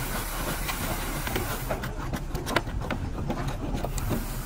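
A steady low hum with a run of irregular knocks and clicks, the sharpest about two and a half seconds in.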